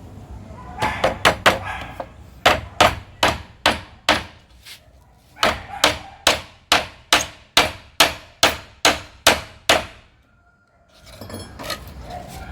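Hammer driving nails into a support frame: three runs of sharp blows with short pauses between them, the last a steady run of about a dozen strokes at roughly two to three a second, stopping a couple of seconds before the end.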